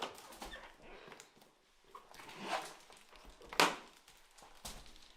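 A few short, noisy animal sounds at irregular intervals, the loudest about three and a half seconds in.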